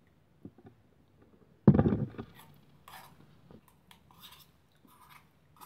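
A sudden loud thump a little under two seconds in, then faint scattered clinks and scrapes of things being handled.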